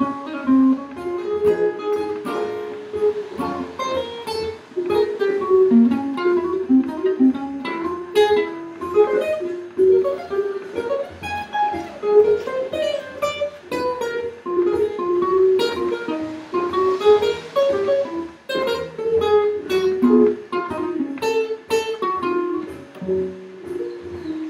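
Godin archtop guitar played with a pick: a fast run of single-note jazz solo lines.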